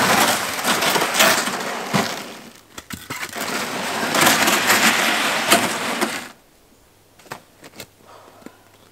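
Footsteps crunching and a plastic sled scraping as it is dragged over crusted snow, with sharp crackles of the breaking crust; it stops suddenly about six seconds in, leaving only a few faint clicks.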